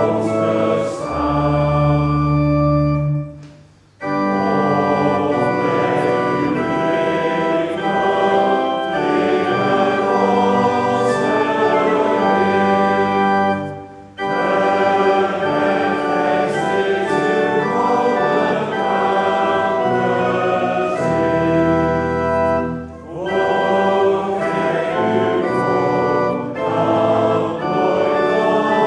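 A church congregation singing a hymn to church organ accompaniment. The music breaks off briefly about four seconds in and again about fourteen seconds in, then carries on.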